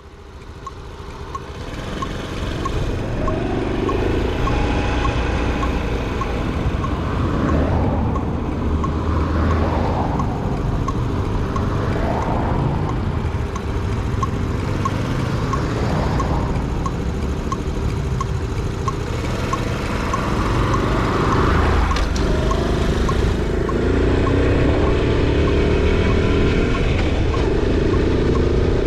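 Honda Super Cub 90's single-cylinder four-stroke engine with stock exhaust, heard while riding: it builds up as the bike gets going, then the engine note rises and drops back several times as it accelerates and shifts. Wind rumble on the helmet-mounted camera and a faint regular tick about twice a second run underneath.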